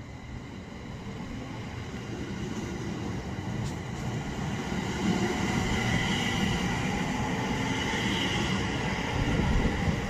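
A JR 701 series 5500-subseries electric train pulling out and running past close by. Its running and wheel noise grows steadily louder over the first five seconds, then stays loud.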